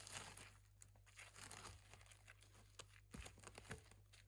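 Faint, irregular crackling and rustling made of many small clicks, a few sharper ones about three seconds in, over a steady low hum.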